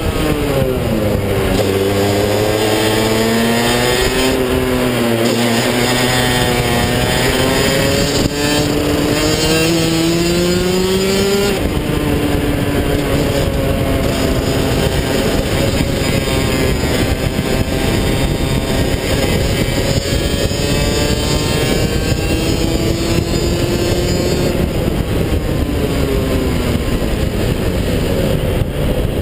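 Rotax DD2 125cc two-stroke kart engine heard onboard at speed. Its pitch dips, then climbs steadily for about ten seconds before dropping abruptly. It rises and falls with the throttle through the corners for the rest of the time, over a steady rush of wind noise.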